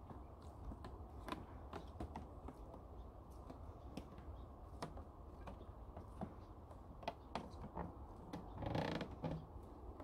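Footsteps on old wooden boardwalk planks: irregular clicks and creaks of the boards underfoot, with a louder, longer creak near the end.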